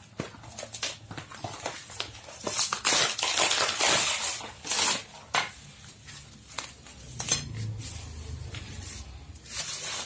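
Bubble wrap and cardboard packaging rustling and crinkling as a wrapped metal barrel is pulled out and unwrapped, with scattered light clicks; the rustling is loudest a few seconds in.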